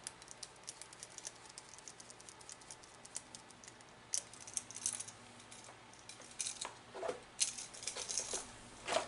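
Scattered light clicks, taps and rattles of a plastic duplex receptacle, a screwdriver and a cable being handled at a plastic electrical box, busier in the second half.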